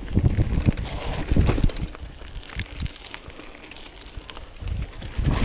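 Mountain bike rattling and thumping over a rough dirt trail, with irregular knocks from the frame and suspension and a low rumble. It eases off in the middle and picks up again near the end.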